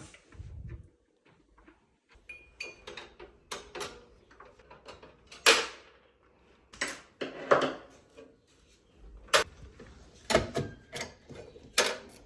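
Irregular clicks, knocks and rattles of PC hardware being handled and fitted into a computer case, with a few sharper knocks about halfway through and near the end.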